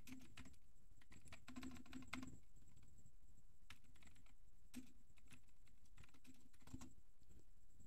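Computer keyboard being typed on, faint, in short runs of keystrokes with pauses between them.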